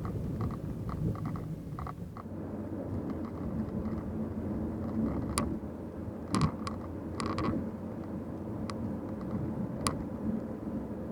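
Steady low rumble of a car being driven, with a few sharp clicks and creaks about halfway through.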